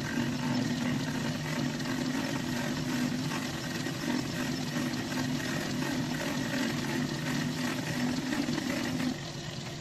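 Metal lathe running with a steady mechanical hum; the level drops noticeably about nine seconds in.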